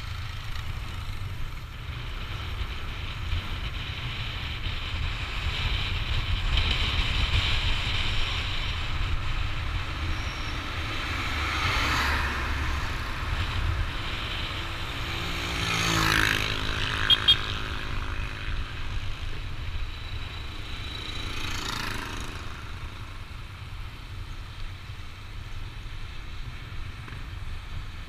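Yamaha NMAX scooter riding along at road speed, its engine running steadily under a low wind rumble on the microphone. A little past halfway the sound swells louder, as of another vehicle going by, with two short sharp sounds just after.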